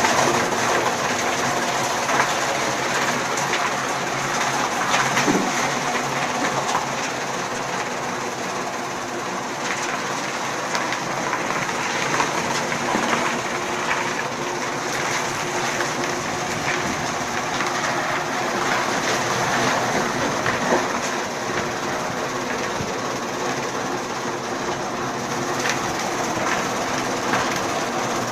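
Chaff cutter running steadily: a continuous mechanical hum with irregular clicks and clatter on top.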